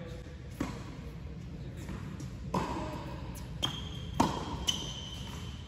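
Tennis balls struck by rackets and bouncing on an indoor hard court in a rally: several sharp pops a second or so apart, each echoing in the large hall, the loudest about four seconds in. A couple of short high squeaks come in the second half.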